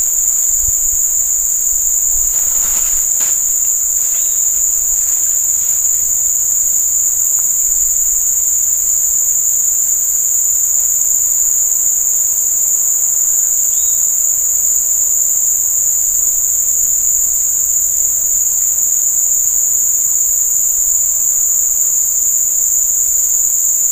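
A dense chorus of insects sounding continuously: one unbroken, high-pitched drone, loud and steady, with a second, even higher drone above it.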